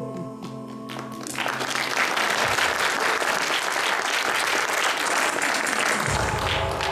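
Audience clapping, beginning about a second and a half in as the last notes of a song fade out.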